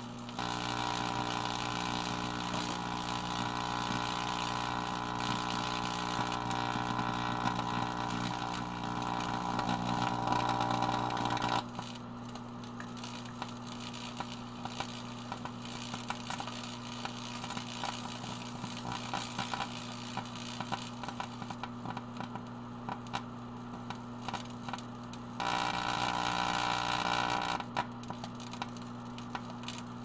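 Microwave oven running with a steady hum while an LCD screen panel burns and sparks inside it, with scattered crackles. A louder, harsher buzz sits over the hum and cuts off suddenly about twelve seconds in, then returns for about two seconds near the end.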